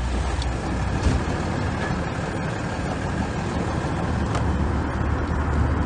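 An engine running steadily, with a low, even noise.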